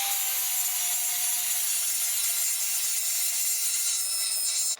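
Angle grinder running against steel, grinding through tack welds to free a piece that was welded on by mistake. A steady whine with a bright hiss; the pitch sags slightly as the disc loads up, and it stops abruptly at the end.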